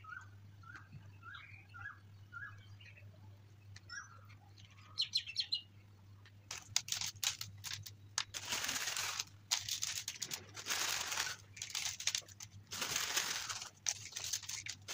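Crisp sev (fried gram-flour noodles) sprinkled by hand onto yogurt-topped samosa and dahi puri chaat: a dry rustling crackle in uneven bursts, starting about six seconds in.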